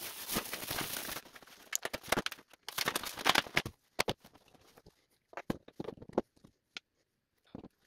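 Rustling and scraping from handling small 3D-printed parts and clothing at a workbench, dense for the first few seconds. Then scattered light clicks and taps.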